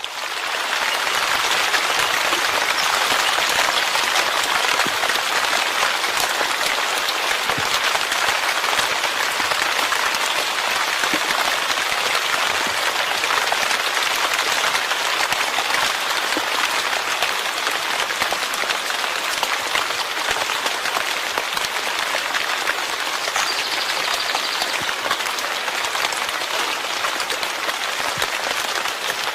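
Steady rain: a dense, even hiss of falling drops that cuts in abruptly at the start and holds without change.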